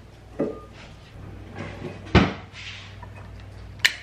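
A few kitchen knocks and clunks, the loudest and deepest about two seconds in, then a short sharp click near the end.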